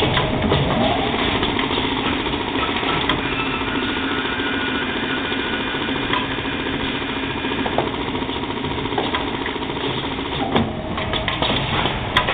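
Automatic rotor turning lathe running, cutting micro aluminum rotors that have no shaft inserted: a steady mechanical whir with faint high whining tones through the middle, and sharp clicks and clatter around the start and again near the end.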